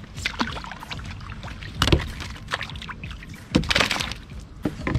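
Handling noises in a fishing kayak: a sharp knock about two seconds in, a cluster of knocks and scrapes at three and a half to four seconds, and another knock near the end, over a steady low rumble.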